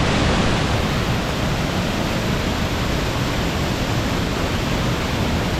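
A waterfall pouring down, heard as a steady, unbroken rush of water noise.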